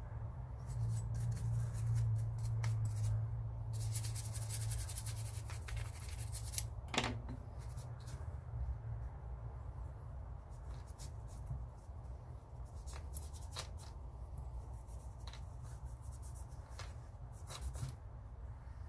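Cloth rag rubbing and scrubbing a small metal rifle action part, with light metallic clicks and handling sounds over a steady low hum. The rubbing turns louder and hissier for a couple of seconds about four seconds in.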